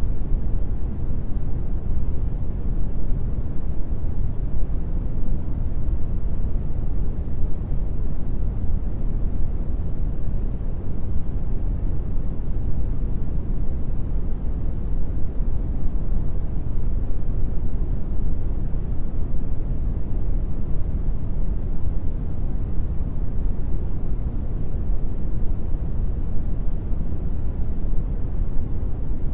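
Steady brown noise: an even, deep hiss, strongest in the low end and thinning out toward the highs, with no changes.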